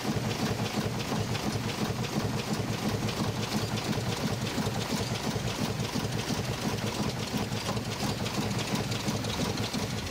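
Small steam launch engine running steadily on the water: a fast, even beat over a hiss of water and wind.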